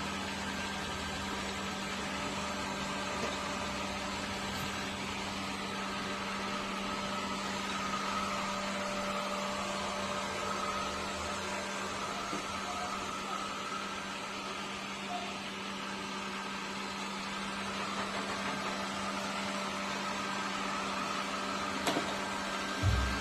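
Yigars robot vacuum-mop running with a steady motor hum and a fainter high whine. A sharp click and a short low thump come near the end.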